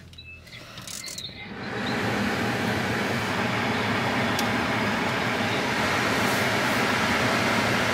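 Steady rushing noise inside a car, coming up about a second and a half in after a few faint clicks and then holding even.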